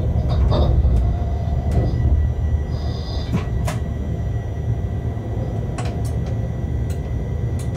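Shunting locomotive rolling slowly along yard track, heard from inside the cab: a steady low rumble with a few scattered sharp clicks as the wheels pass rail joints and points.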